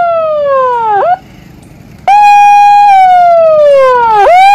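Warning siren sounding a flood alert to clear people from the riverbank. It gives a loud held tone that slides down in pitch and snaps back up, twice, with a break of about a second after the first slide.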